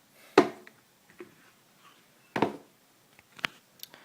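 Running shoes being handled, giving three knocks or taps: a loud one about half a second in, another about two and a half seconds in, and a sharper click about a second later.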